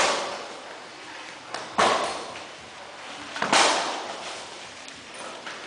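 Kickboxing strikes landing: three sharp smacks about one and a half to two seconds apart, each echoing briefly in the hall.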